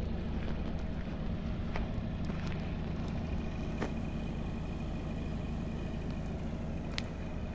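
Mercedes-Benz Actros 2542's V6 diesel engine idling steadily, heard from behind the trailer, with wind on the microphone and a few sharp clicks.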